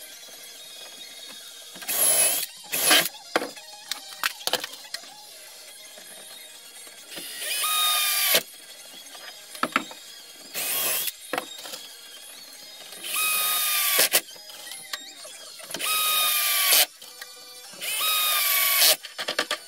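Cordless drill-driver driving wood screws through a swivel caster's mounting plate into a wooden cabinet: about six short runs of motor whine, each a second or so long, the pitch sliding up as it spins up and dropping as it slows, with small clicks of handling in between.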